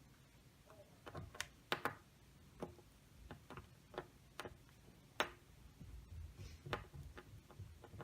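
Irregular small sharp clicks and ticks, starting about a second in: a small screwdriver and screws working as the replacement screen panel is fastened back into a laptop lid.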